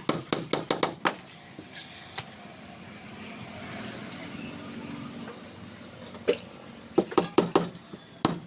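A hammer driving nails into a plywood hull panel: quick strikes, about five a second, then a couple of single taps. A low rumble swells and fades in the pause, and quick hammer strikes start again near the end.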